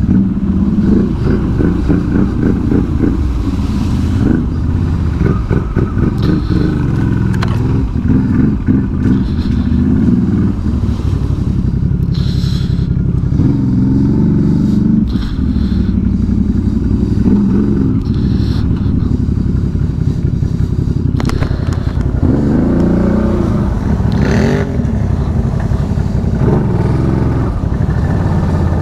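CF Moto CForce 1000 ATV's V-twin engine running under way on a trail, its revs rising and falling with the throttle, with a few short knocks and clatter from the machine.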